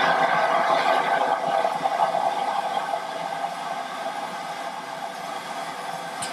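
Steam locomotive hissing steam, louder for the first couple of seconds and then easing off, with a short click at the very end.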